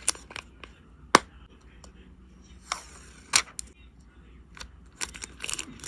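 Photocard packing sounds: a few sharp clicks and taps of plastic packaging being handled, the loudest about a second in, with short rustling of plastic sleeves near the end.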